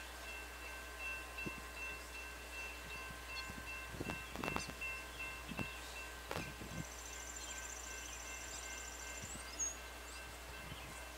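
Railroad crossing bell ringing steadily as its signals flash, a repeated metallic ding that carries faintly over the surrounding quiet.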